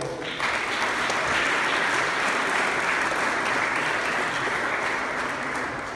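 Audience applauding, starting just after the start and fading out near the end.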